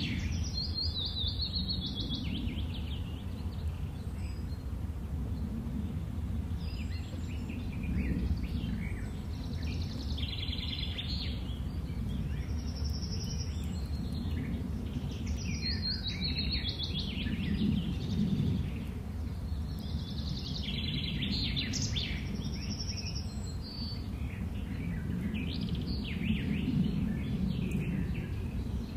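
Small birds chirping and singing in short clusters every few seconds over a steady low background rumble of outdoor ambience.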